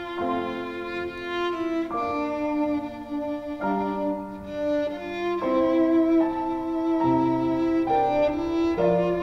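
Slow instrumental introduction to a hymn, with violin over sustained chords that change every second or so.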